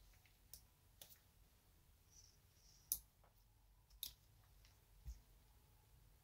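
A few light metallic clicks and taps from the small steel frame of a Colt 1908 Vest Pocket pistol being handled, the loudest about three seconds in. A duller soft knock comes near the end.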